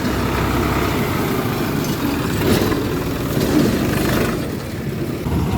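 Engine of a harvesting machine running steadily.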